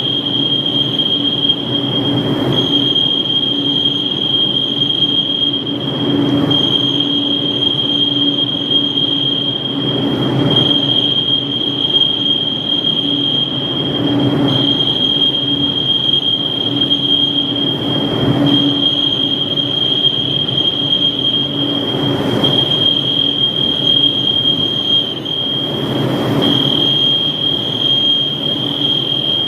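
Fire alarm sounder giving a steady high-pitched tone, broken briefly about every four seconds, over the steady rushing of ventilation jet fans running during the alarm test.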